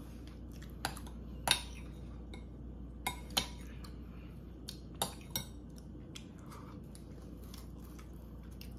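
Metal spoon clinking against a glass bowl while scooping ice cream, about six sharp clinks in the first five or six seconds, then only faint ticks.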